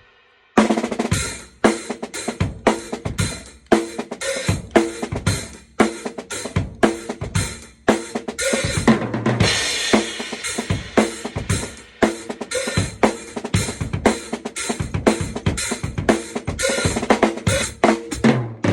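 Drum kit being played: kick drum, snare, hi-hat and cymbals in a steady stream of strokes, starting about half a second in, with a heavier cymbal wash around the middle.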